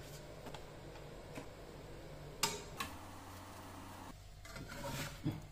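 Plastic spatula clicking and knocking lightly against a nonstick frying pan while a piadina is folded over in it: two sharp taps about two and a half seconds in, and another cluster of taps near the end.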